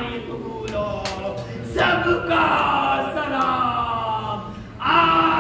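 Men chanting a slow Muharram lament in Urdu: drawn-out sung phrases that slide in pitch, with short breaks between them.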